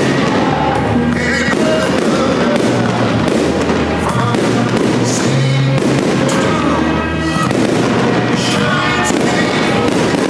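Aerial fireworks shells bursting one after another, about a bang every second, with music playing along underneath.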